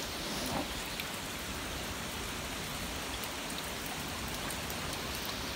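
Hurricane rain driven by strong wind: a steady, even hiss with a few faint ticks of drops.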